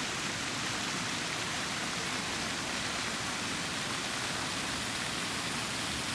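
Water-play fountain jets shooting up and splashing back down into a shallow pool, a steady sound of falling water.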